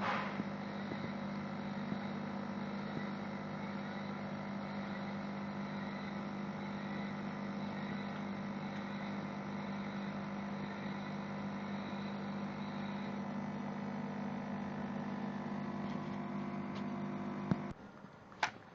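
Orbimatic 160C orbital welding machine with its closed weld head running through a weld: a steady hum with several held tones that cuts off suddenly near the end, followed by a single click.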